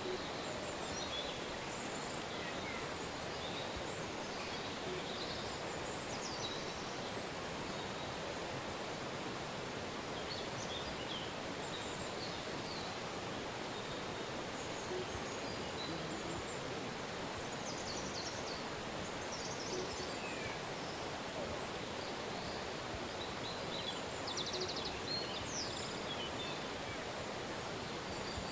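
Steady rushing of a river, with scattered short bird chirps and calls over it, busier in the second half.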